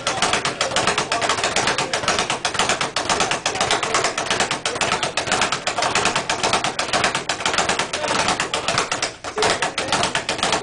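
Speed bag punched with gloved fists in a fast, steady rhythm, knocking rapidly against its round wooden rebound board. There is a brief break about nine seconds in.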